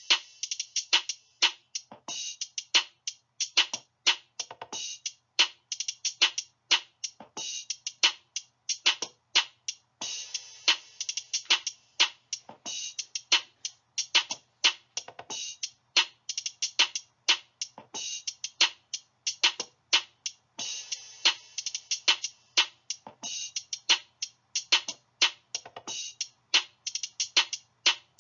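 Background music: a steady electronic beat of sharp percussive hits, about two to three a second, over a low sustained tone.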